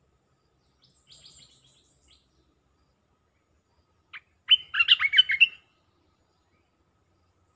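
Ochraceous bulbul in a hanging cage, being trained as a decoy, gives one loud burst of quick chattering notes about four and a half seconds in, led by a single short note. Faint higher chirping comes about a second in.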